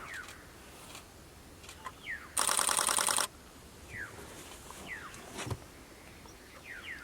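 A loud, rapid rattle lasting just under a second, starting about two and a half seconds in, against faint short falling chirps that repeat every second or so.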